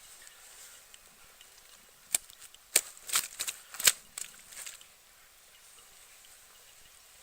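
A lively carp flapping and slapping, a quick run of sharp smacks, about eight in under three seconds, starting about two seconds in.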